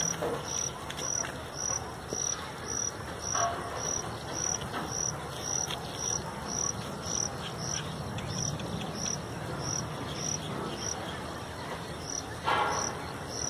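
An insect chirping steadily and high-pitched, about two chirps a second, over a low steady background rumble.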